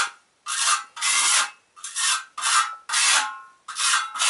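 Hand tool scraping repeatedly across an earthen floor, in short strokes about two a second, taking excess oil-saturated clay patch off the surface around a filled crack.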